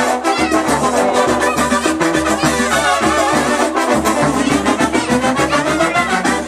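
Brass-band dance music with a steady beat, played loud over a party sound system.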